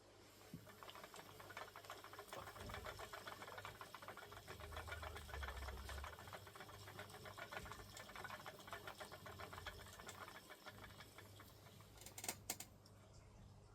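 Spinning wheel running fast as yarn is spun, a faint, rapid, even ticking whirr, with a couple of louder clicks near the end.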